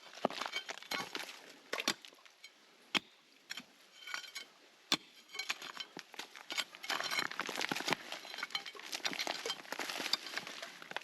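Digging in rocky ground: hand tools clinking and scraping on stone and loose rubble. A scatter of sharp clicks runs through, with a denser stretch of scraping in the second half.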